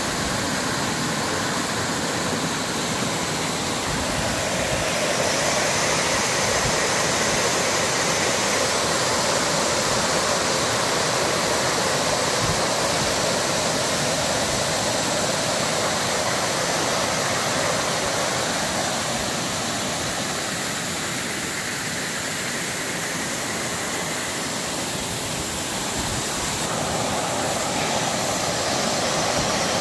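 Waterfall pouring onto rocks: a steady rush of falling, splashing water that eases slightly about two-thirds through.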